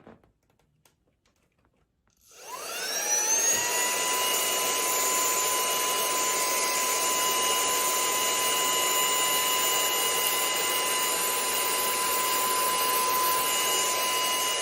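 SPICIMOMO cordless handheld car vacuum switched on about two seconds in. Its motor spins up with a rising whine, then runs steadily with a high whine over a rush of air as it sucks up debris, nice and powerful.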